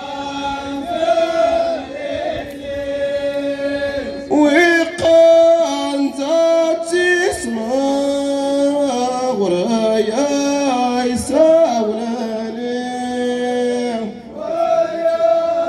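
A men's chorus chanting an Amazigh ahwach song together on one melodic line, in long held notes that slide and step between pitches, with no drumming.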